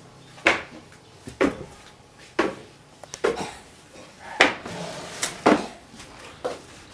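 Footsteps climbing a staircase indoors: a steady series of knocks, about one step a second.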